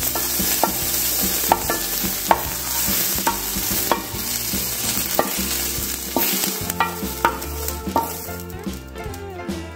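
Wooden spoon scraping and knocking hot sautéed peas and spinach out of a frying pan into a glass blender jar, with repeated sharp knocks over a steady sizzling hiss from the hot greens.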